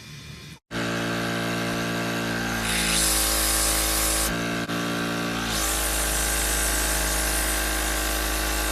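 A small electric power-tool motor running steadily, starting abruptly less than a second in. Its pitch sags about three seconds in, jumps back up near the middle and sags again, as if briefly loaded.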